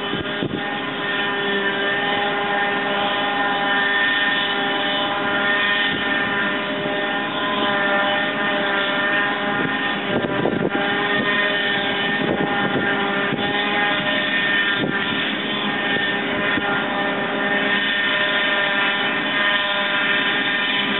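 John Deere 7750 self-propelled forage harvester running steadily at working speed: a loud, even machine drone with several held tones.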